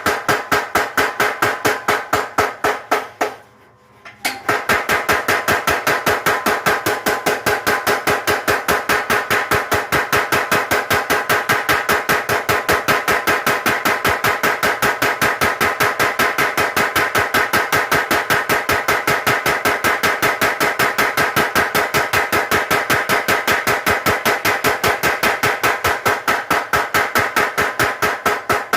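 A mechanical power hammer pounds hot steel in a rapid, even run of blows, several a second, each with a metallic ring. It stops for about a second near the start, then resumes at the same steady pace.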